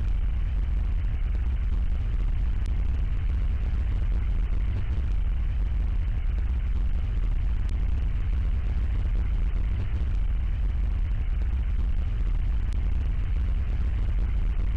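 Steady deep rumbling noise drone, a 'space sound' ambience presented as the sound of dwarf planet Varda, with faint high ticks about every five seconds.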